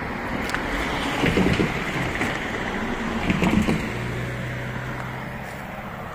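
A car passing on a nearby road: a rushing sound that swells, peaks in the middle and fades away, with a low steady hum near the end.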